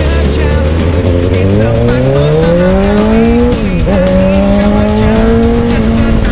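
Suzuki GSX-R600 inline-four engine and exhaust under acceleration: the pitch rises for about two seconds, drops sharply at an upshift about halfway through, then holds steady at a higher pitch.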